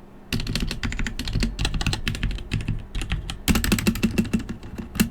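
Dierya EK63 60% mechanical keyboard with Gateron Red linear switches and PBT keycaps being typed on: runs of quick keystrokes, thickening into a fast flurry a little past halfway, with one sharp clack at the end.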